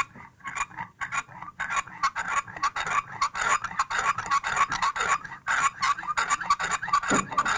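Steel chisel being honed on a water-wetted ceramic sharpening stone: rapid back-and-forth strokes, each pass a short rasping scrape, several a second. The stroking works just the very edge, honing a micro bevel.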